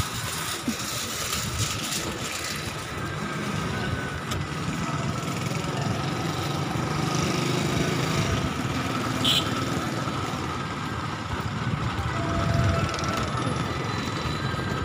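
Traffic noise: vehicle engines running nearby at idle and low speed, a steady low rumble, with a short single tone near the end.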